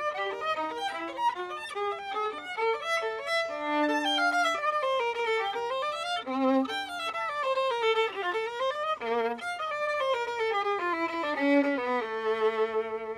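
Solo violin bowed in a fast melody, quick notes running up and down the scale, settling on a long held note near the end.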